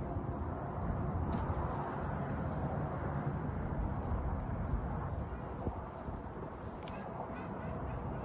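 An insect chirping in a steady, high-pitched rhythm of about five pulses a second, over a low rumble of wind or water.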